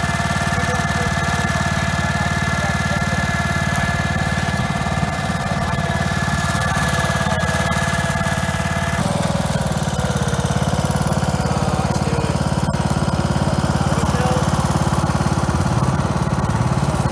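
Small petrol engine running steadily at idle, with a low, even pulse. Higher steady whining tones drop out about nine seconds in while the engine note carries on.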